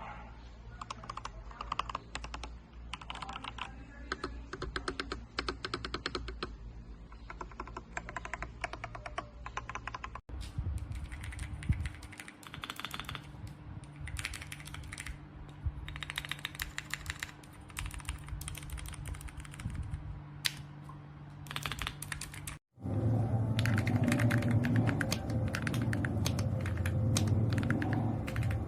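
Typing on a mechanical keyboard fitted with JERRZI Seashells linear switches: a fast run of keystroke clacks in three separate takes, the last one louder and deeper.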